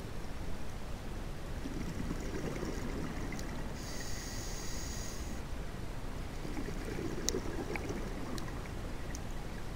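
Scuba diver breathing through a regulator, heard underwater: a burble of exhaled bubbles, a hissing inhalation, then another burble of bubbles, with scattered sharp clicks.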